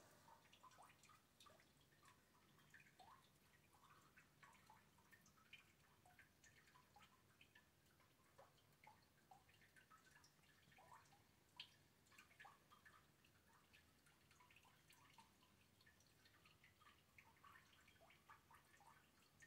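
Faint, irregular dripping of rain: many small drops a second, one slightly louder drop near the middle.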